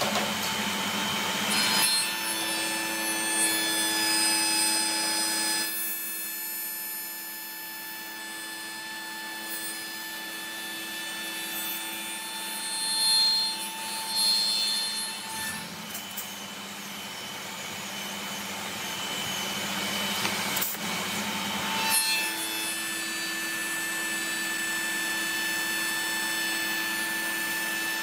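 Spindle moulder (wood shaper) running with a steady whine from its spinning cutter head. It cuts into a solid-wood workpiece, louder and fuller for the first several seconds and again for the last several, and runs quieter in between.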